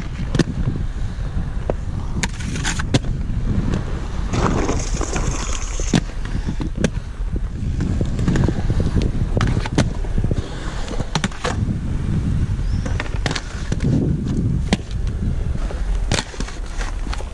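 Aggressive inline skate wheels rolling over concrete with a steady rumble, broken by repeated sharp clacks of grinds and landings on ledges and rails.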